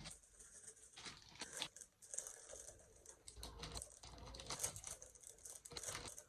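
Faint, irregular crinkling and crackling close to the microphone: a dense run of small sharp crackles with no speech.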